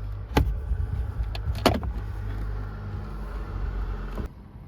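A steady low hum with two sharp clicks of plastic trim being handled, about a second apart. The hum cuts off suddenly near the end.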